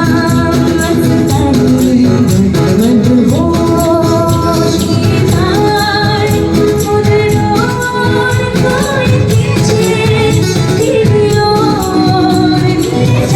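Live music amplified through a PA system: a voice singing a wavering, gliding melody over dhol drumming and jingling tambourine-like percussion, with a heavy bass.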